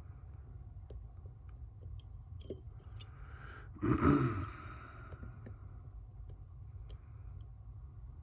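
Faint, sparse clicks of lock picks working the side finger pins inside a Zeiss Ikon SK6 Radienprofil lock, with a louder knock and a short rush of noise about four seconds in.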